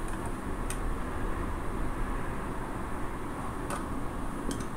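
A WD My Passport portable hard drive's plastic case being pulled apart by hand, with a few short clicks as it comes loose, over a steady low rumble.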